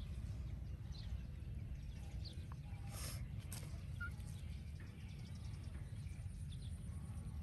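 Outdoor ambience: a steady low rumble of wind on the microphone with faint, short, high chirps scattered throughout, and a brief rustle about three seconds in.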